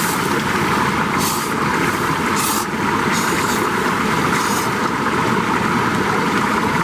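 A steady, loud rushing roar runs throughout, with several short slurps of cup ramen noodles over it.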